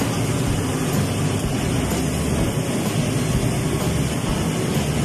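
Steady roar of commercial kitchen wok range burners and exhaust hood running at full tilt.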